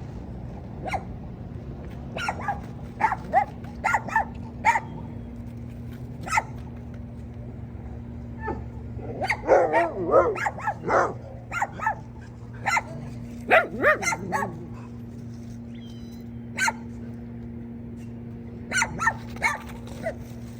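A dog barking repeatedly in short, sharp barks and yips, with two quick flurries of wavering, yelping barks near the middle. A steady low hum runs underneath.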